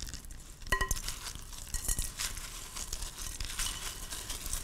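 Spoon stirring a dry snack mix of Rice Chex cereal, candy-coated chocolates and dried fruit in a large glass bowl: a steady rattling rustle of the pieces with irregular clinks against the glass. One clink rings briefly about three quarters of a second in.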